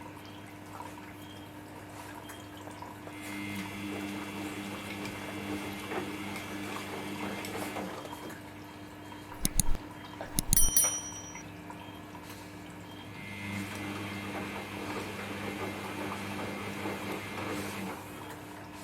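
Samsung EcoBubble front-load washing machine running early in a cotton wash with bubble soak: water sloshing in the drum over a steady motor hum, louder in two spells of about five seconds each as the drum turns. A short burst of sharp clicks about halfway through is the loudest sound.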